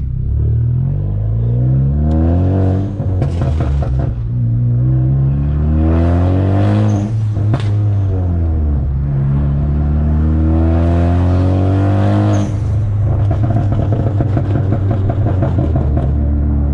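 Big-turbo Ford Focus ST on a stratified pop-and-crackle tune, accelerating hard in several pulls with the engine pitch rising and dropping at each shift. Loud exhaust pops and crackles break in between pulls, with a rapid run of them near the end.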